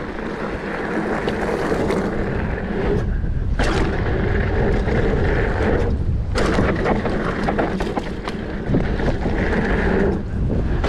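Wind buffeting the camera microphone as a Specialized Fuse 27.5+ hardtail mountain bike rolls fast downhill over a dirt and gravel trail. Under the wind are tyre rumble and frequent small rattles and clicks from the bike, and the higher hiss thins briefly twice, about three and six seconds in.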